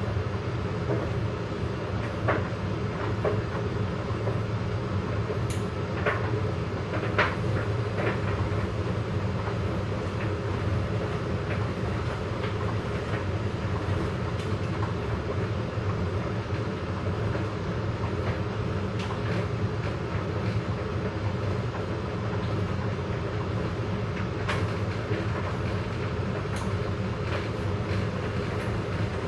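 Hoover and Candy washer-dryers running together: a steady low rumble and hum from the turning drums, with scattered light clicks and knocks.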